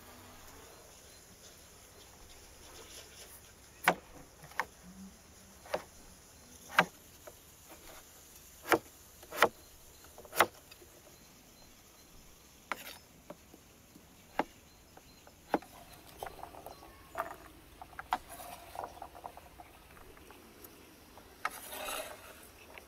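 Large kitchen knife chopping potatoes on a wooden cutting board: sharp single chops roughly a second apart, then a run of lighter, quicker cuts. Near the end, the blade scrapes the diced potato across the board.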